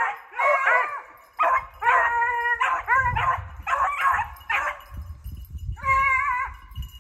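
Hunting hounds baying in a string of drawn-out, wavering howls, several voices overlapping, with a short break near the end: the pack giving tongue while running a hare.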